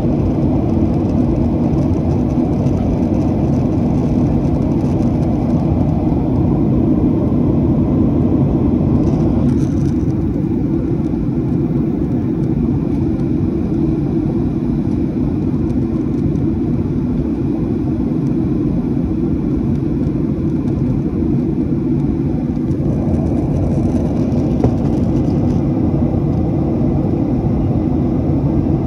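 Boeing 737 jet engines and airflow heard inside the passenger cabin: a steady, loud rumble. Its higher part eases off about ten seconds in and comes back some thirteen seconds later.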